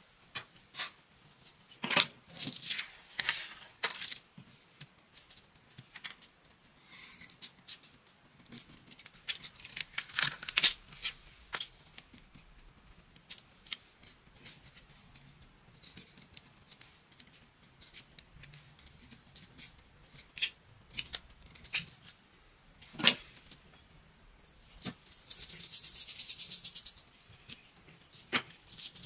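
Metal picking tool clicking and scratching on a sand-art board as the paper backing is lifted and peeled off, in short scattered strokes. Near the end, sand shaken from a jar onto the sticky board gives a steady rattling hiss.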